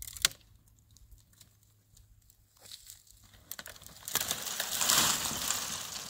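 Dry branches of a dead tree scraping and crackling over stony, gravelly ground, with a single sharp crack near the start. From about four seconds in comes a louder, sustained rushing scrape as the tree slides down the slope.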